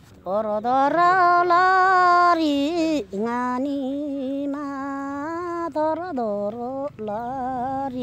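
An elderly woman singing a Tamang selo folk song with no accompaniment, holding long, wavering notes.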